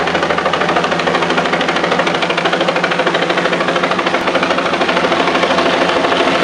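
Helicopter with a two-bladed main rotor flying low overhead: a steady rotor chop, a rapid even beat over the engine's running sound.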